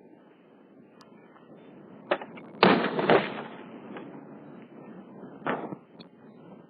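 Four pistol shots, unevenly spaced, the loudest about two and a half seconds in, each trailing off.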